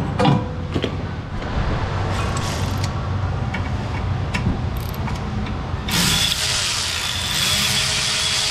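A couple of metal clinks just after the start as the brake rotor is handled. Then, from about six seconds in, a loud hissing whir from a power tool driving in the rotor's small set screw, over a steady shop hum.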